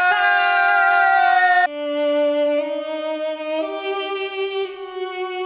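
Background music: a slow melody of long held notes, stepping to a new pitch about once a second.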